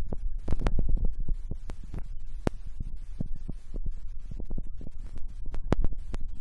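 Handling noise from a hand-held camera or phone being moved: a low rumble with many irregular clicks and knocks, the loudest click a little after two seconds in.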